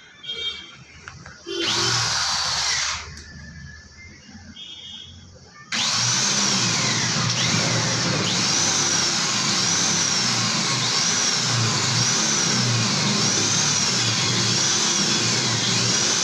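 Corded electric hand drill boring through the HPL laminate sheet and the steel gate frame: a short burst about 1.5 s in, then running continuously from about 6 s in, with a high whine from the bit that rises and falls roughly once a second.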